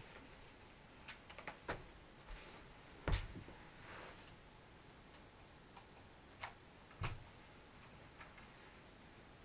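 Scattered light clicks and knocks of things being handled during packing, the loudest a dull thump about three seconds in as a laptop is set down on the carpet, and another knock about seven seconds in.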